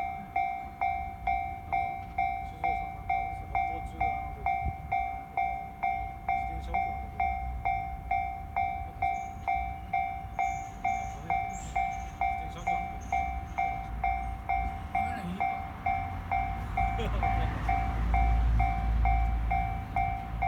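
Japanese railway level-crossing warning bell ringing steadily, about two strokes a second. A train rumbles past in the last few seconds, loudest near the end.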